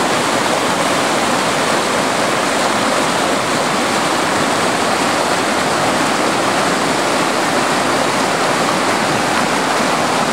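A stream's water rushing steadily and loudly over its bed.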